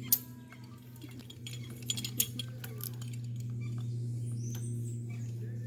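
Zipline trolley running along the steel cable as a rider slides down, a steady low hum, with light metallic clinks of the harness hardware.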